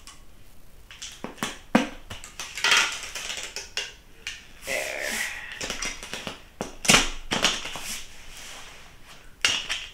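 Package being closed up by hand: rustling with a series of sharp clicks and taps at uneven intervals.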